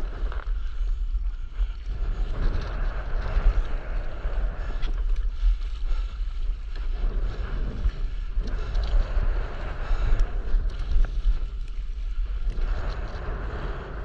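Wind buffeting the microphone of a camera held low over the sea, a constant low rumble, with water sloshing and splashing around a stand-up paddleboard that swells and fades every few seconds.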